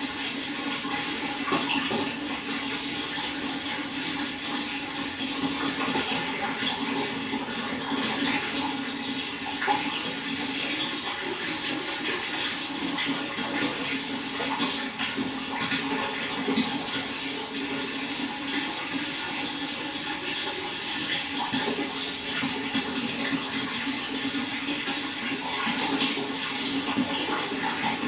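Running water pouring and splashing steadily, a continuous even rush with no breaks.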